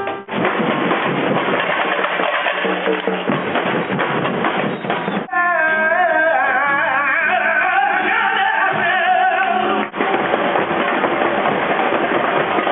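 Live festival music recorded in clips joined by sudden cuts. A dense, noisy stretch is followed about five seconds in by a clear, wavering melody over steady lower notes. A second cut about ten seconds in brings back dense, noisy sound.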